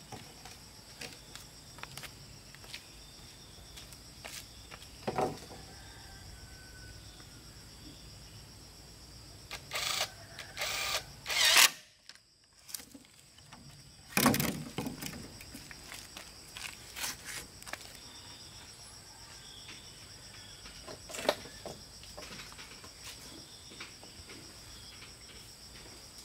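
Steady high-pitched drone of insects such as crickets, with scattered knocks and clatters of bamboo poles being handled; a few louder clatters come about halfway through.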